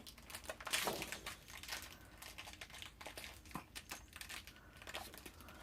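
Sheets of scrapbook paper and cardstock rustling and crinkling as they are handled and shuffled, in soft irregular bursts with a few light taps.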